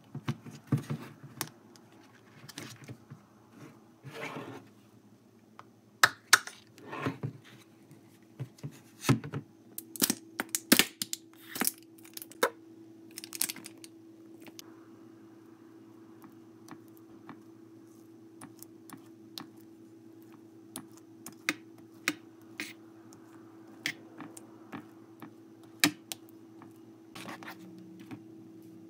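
Plastic squeeze bottle of mayonnaise being handled: a dense run of sharp clicks and crackles as the cap is opened and the bottle squeezed, loudest in the first half, then scattered light clicks and taps as the mayonnaise is spread over the turkey slices. A faint steady hum runs underneath.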